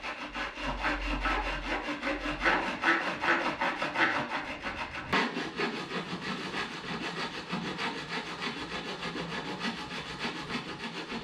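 Hand file worked back and forth in rapid, even strokes on an aluminum angle clamped in a bench vise, filing the part down to fit.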